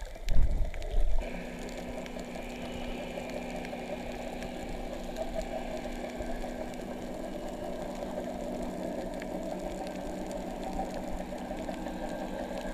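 Underwater recording: a few heavy, muffled thumps in the first second, then a boat engine's steady hum carried through the water, with a faint crackle.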